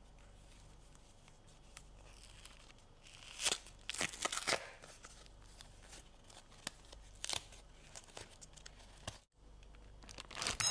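Crinkly sheet material being rustled and torn by hand, with scattered light handling clicks and a few louder rustles. Near the end comes a short clink that rings briefly.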